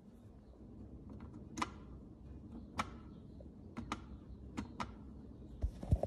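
Pohl Schmitt glass electric kettle heating water: a low steady rumble with scattered, irregular ticks and pops. A dull thump comes near the end.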